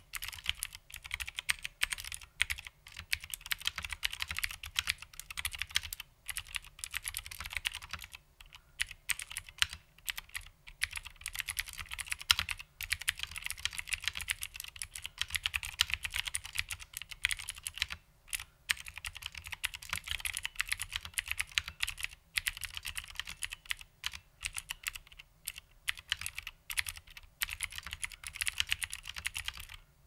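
Fast touch-typing on an HMC C386SX mechanical keyboard with vintage Cherry MX Blue switches under original Cherry doubleshot keycaps: a dense, even stream of crisp, clicky keystrokes, broken by a few brief pauses, about eight and eighteen seconds in.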